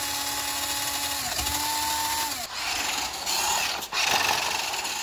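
WPL D12 RC pickup's electric drive motor and gearbox whining steadily at full throttle, with a brief dip about a second in. The whine stops about two and a half seconds in, and a rougher running noise of the truck's drivetrain and tyres follows.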